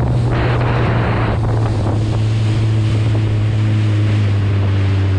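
Kawasaki Ultra LX jet ski engine running steadily at speed, with wind buffeting the microphone and water spray hissing, strongest in the first second or so.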